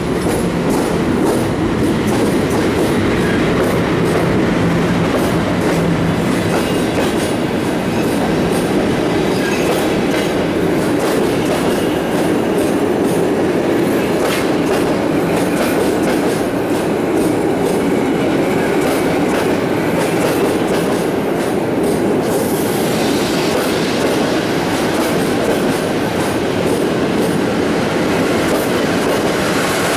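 Passenger coaches of an intercity train hauled by an EP07 electric locomotive rolling past along the platform, their wheels clicking steadily over the rail joints. A brighter hiss joins about two-thirds of the way in.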